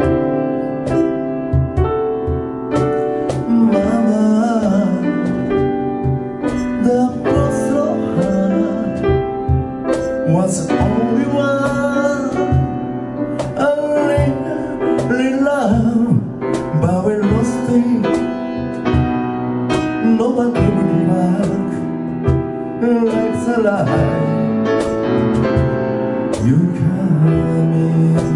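A man singing while accompanying himself on a grand piano, his voice gliding between held sung notes over struck piano chords.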